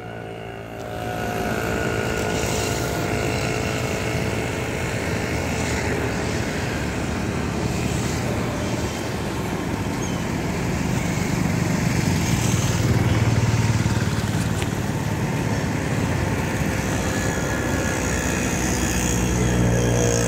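An engine running steadily with a low hum that swells a little about halfway through.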